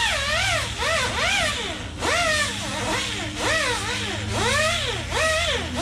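Handheld power grinder shaving the hard molded edges off a pre-molded foam seat cushion, its whine rising and falling in pitch about twice a second as it bites into the foam and frees up again. A steady low hum runs underneath.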